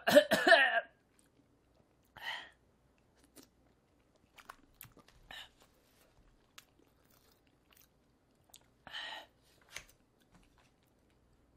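A person chewing food close to a microphone, with small wet mouth clicks. There is a short voiced exclamation at the very start, then a few breathy puffs of air a few seconds apart.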